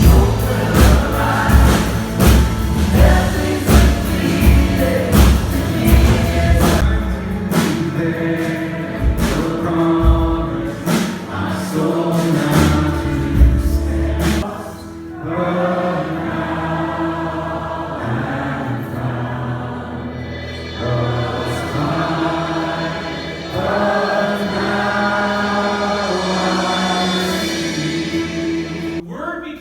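Gospel choir singing with a steady drum beat; about halfway through, the drums drop out and the choir carries on with long held chords.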